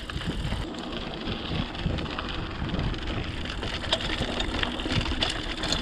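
Hardtail mountain bike ridden over a rough, stony trail: tyres crunching on gravel and rocks and the bike rattling, a steady noise broken by scattered sharp clicks and knocks.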